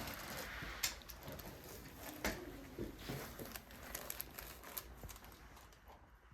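Rustling and crinkling, with a few sharp soft ticks, as a person turns over onto her back on a chiropractic treatment table. It grows quieter near the end.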